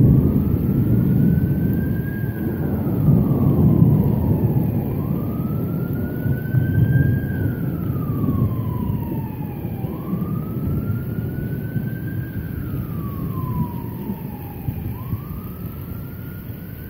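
A long rolling rumble of thunder, loudest at the start and slowly fading. Over it an emergency-vehicle siren wails, rising for about two seconds and falling for about three, over and over.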